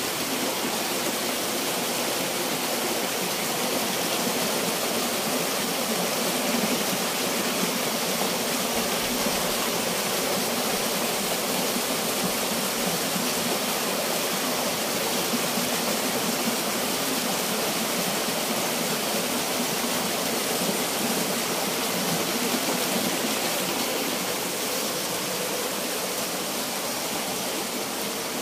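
Small rocky stream rushing and splashing down a low cascade over stones: a steady, even rush of water.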